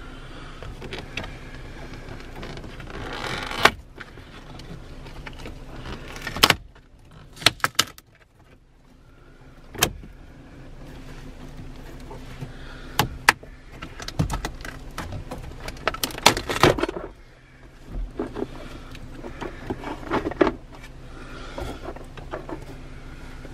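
Center dash trim bezel being pried and pulled out by hand: a series of irregular sharp snaps, clicks and creaks as its clips and the glue holding it let go, with rustling in between.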